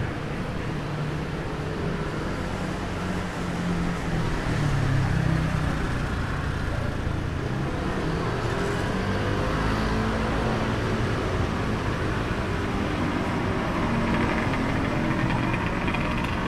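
Steady urban street traffic: vehicle engines running and passing, with a low engine hum that swells briefly a few seconds in.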